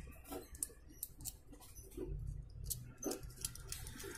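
Faint, irregular little clicks and scrapes of metal tweezers working the bent, damaged leg of an electrolytic capacitor, straightening it so the part can be reused.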